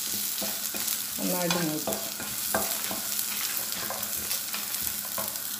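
Shallots, dried red chillies, cashew nuts and garlic frying in oil in a nonstick pan, with a steady sizzle and the light scrape of a wooden spatula stirring them. The mix is well browned, ready for grinding into a paste.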